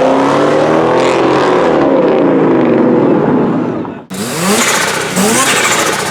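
Car engine accelerating hard, its pitch climbing and easing off across several gears. About four seconds in it cuts to a car engine being blipped in short, quick revs, each rising sharply in pitch.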